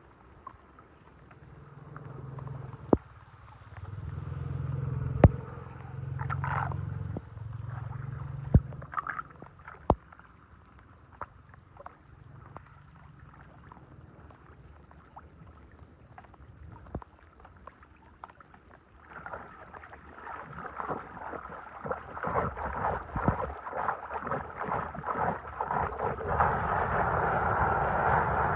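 Water gurgling and splashing, building up and growing louder about two-thirds of the way in. Before it come a few sharp knocks and low rumbling.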